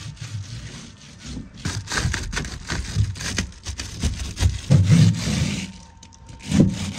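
Rubbing and scraping as glued carpet is pressed onto the bare metal above a van's cab, with a couple of dull knocks in the second half.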